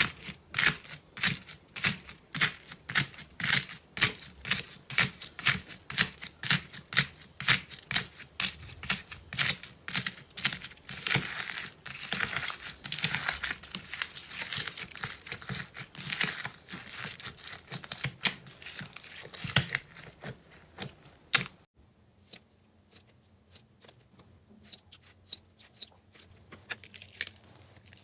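Slime being squeezed and poked by hand, making crisp clicking pops about twice a second, which run together into denser crackling after about ten seconds. About 22 seconds in it cuts to much quieter, fainter handling sounds.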